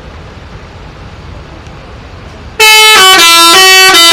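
Bus 'telolet' horn, a multi-tone musical air horn, blaring a quick tune of stepping notes. It starts suddenly about two and a half seconds in, loud over a steady low rumble.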